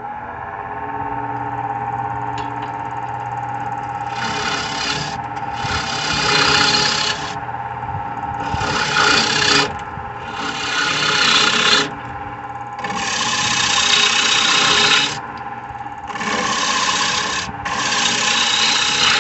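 Wood lathe motor running steadily while a turning tool cuts into a spinning spalted birch bowl blank. The cut is a hissing scrape in repeated passes of one to two seconds each, starting about four seconds in.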